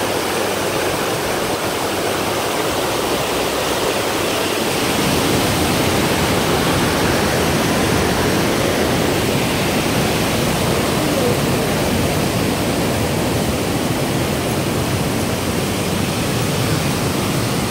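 Waterfall and rapids rushing over rock: a loud, steady wash of water that grows a little fuller about five seconds in.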